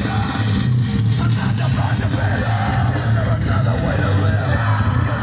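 Heavy rock music with a strong, steady bass line, played back through a small 8 cm Blaupunkt SL 8715-A2 car speaker with a repaired cone.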